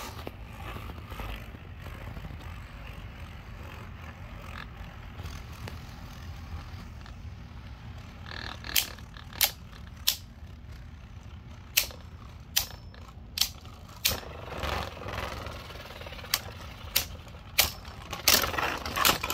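Two Beyblade Burst tops, one of them Divine Belial, spinning against each other in a plastic stadium. A steady low whir runs through, and from about halfway through comes a string of sharp clacks as the tops collide, about a dozen, thickest near the end, with short scraping runs between them.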